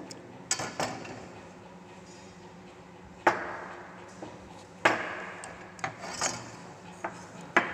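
Sharp knocks and clatters of wooden blocks and a try square being set down, turned and shifted on a workbench while marking out, about eight in all, the loudest about three seconds in, near five seconds and near the end.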